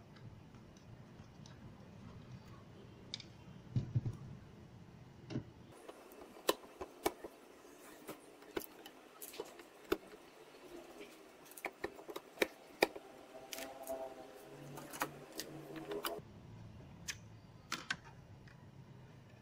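Irregular light clicks, taps and knocks of a woofer and its frame being handled and pulled out of a Bose 301 V speaker cabinet's baffle.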